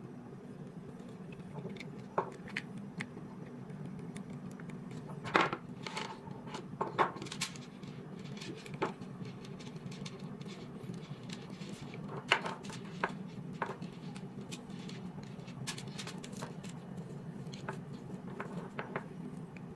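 Irregular small clicks, taps and rattles from handling a string of curtain lights and their packaging, with a few sharper knocks, over a steady low hum.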